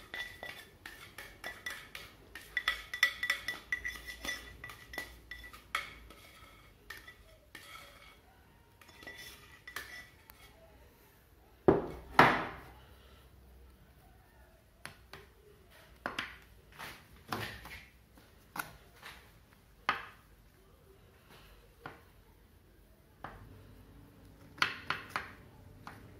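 A spatula knocking and scraping against a glass baking dish and bowls while spreading a cream layer: scattered clinks and knocks, some of them ringing, with the two loudest knocks about halfway through.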